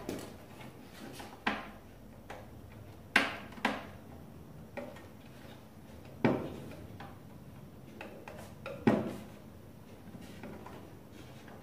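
Sharp wooden knocks, about eight of them and unevenly spaced, as a Windsor chair's spindles and arm bow are worked and fitted together by hand. The loudest come about three seconds in and near nine seconds.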